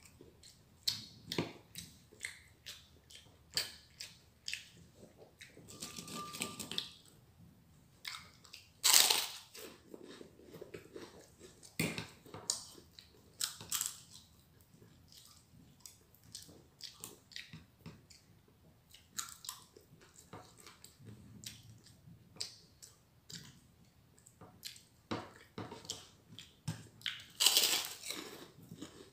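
A person eating close to the microphone: chewing with irregular crunches and small clicks, the loudest crunches about nine seconds in and again near the end.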